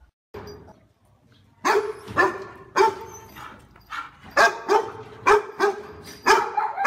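A dog barking repeatedly: a run of about a dozen loud, short barks starting about a second and a half in.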